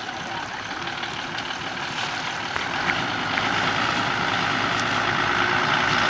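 A four-wheel drive's engine running at low speed as it wades through deep water, with water washing around its front; the sound grows louder in the second half.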